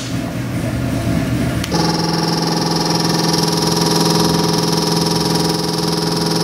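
Chevrolet LQ9 6.0-litre cast-iron-block V8 with a thumper cam, idling on an engine dyno at about 870 rpm. About two seconds in the sound changes suddenly and then holds steady.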